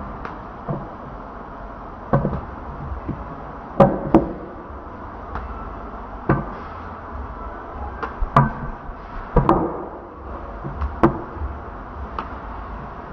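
Meat cleavers knocking down on a wooden chopping block: a dozen or so irregular sharp thuds, some in quick pairs, over a steady low hum.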